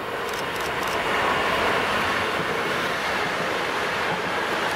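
PKP Intercity Pesa Dart electric multiple unit passing at speed: a steady rush of wheels on rail that swells as it draws near, with a few sharp clicks about half a second in.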